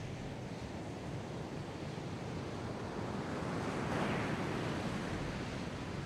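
A continuous rushing noise that swells to a peak about four seconds in and then eases off.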